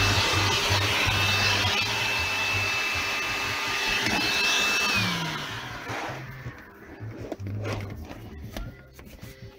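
Honda Odyssey's built-in HondaVac vacuum running with a steady high whine and rushing air, then switched off about five seconds in, its whine sliding down as the motor spins down. A few light knocks follow.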